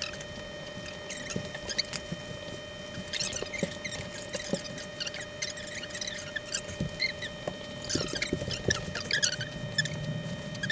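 Glass bottle of water heating in a frying pan on a gas stove as the water nears the boil: irregular small clicks and short squeaky chirps from the bottle and the hot pan, over a steady faint hum.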